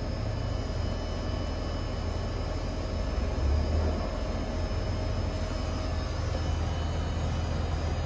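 Outdoor condenser unit of a variable-speed central air conditioner running during refrigerant charging: a steady low hum from the compressor and fan, with a faint steady higher tone, swelling slightly a few seconds in.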